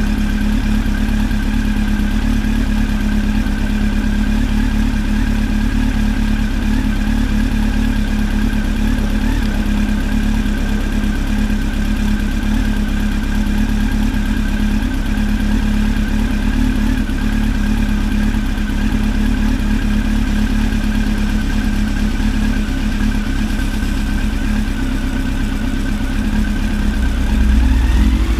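Honda CB1300 motorcycle's inline-four engine running at a steady speed, checked for a ticking noise. The revs rise briefly near the end.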